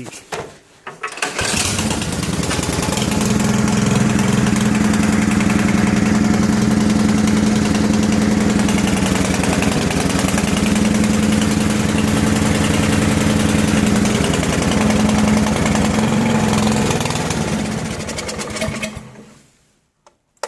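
Briggs and Stratton snowblower engine cold-starting on choke: it catches on a pull about a second and a half in, runs steadily, and stops near the end.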